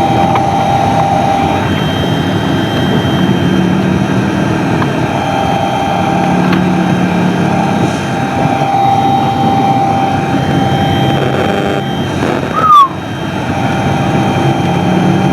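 Car driving in strong wind gusts, heard from inside the cabin: a steady mix of wind buffeting the car with engine and road noise. A short, loud burst comes near the end.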